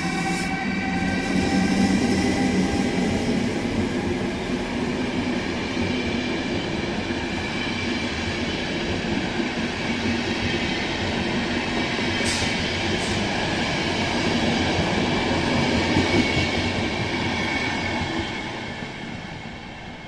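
A passenger train pulling out past the platform: the EU44 Siemens Taurus electric locomotive, then its coaches rolling by, a broad rumble with a steady whine of several tones on top. The noise drops away near the end as the last coach passes.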